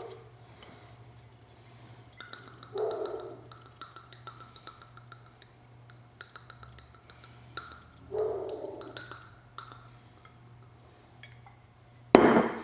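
Light clinks and taps of kitchen utensils and a glass bowl while raw chicken thighs are being seasoned. Two short, fuller sounds come about three and eight seconds in, and a loud sharp knock comes near the end.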